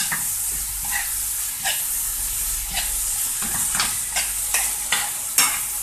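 Chicken pieces with diced green and red peppers sizzling in a nonstick frying pan as they are stirred: a steady frying hiss with short scrapes and knocks of the stirring utensil against the pan every half second or so, the loudest near the end.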